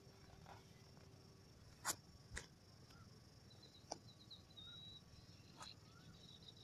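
Near silence: faint outdoor ambience with four brief sharp clicks, the loudest about two seconds in, and faint high-pitched chirps in the second half.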